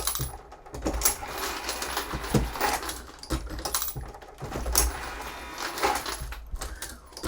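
Hornady Lock-N-Load AP progressive reloading press being cycled with brass .223 cases: metallic clunks and clinks about every second or so as the ram and shell plate move and cases drop in from the case feeder, over the steady running of the feeders.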